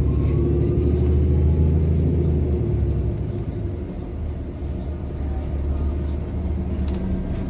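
Road traffic at a city intersection: a heavy vehicle's engine runs close by with a deep steady rumble that eases off after about two and a half seconds, leaving lighter traffic sound of passing cars.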